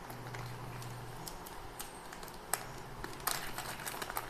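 Small plastic parts bag rustling and crinkling in the hands, with scattered light clicks and a sharp snip of scissors a little over three seconds in. A low hum runs through the first second or so.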